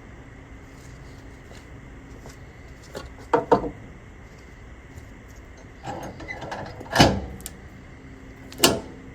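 A few sharp knocks or clanks over a steady hum: a quick pair, then the loudest one, then one more near the end.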